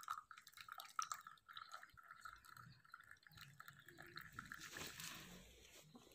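Faint trickle of liquid poured from a cooking pot into a glass, with small drips; it dies away about five seconds in.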